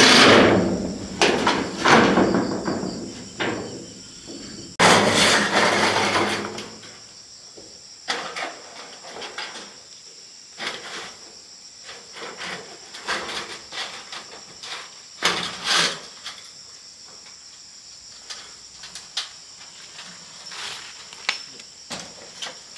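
A power drill running briefly at the start and again for about a second and a half about five seconds in, driving fasteners into corrugated iron roofing. After that come scattered knocks and taps, over a steady high chirring of insects.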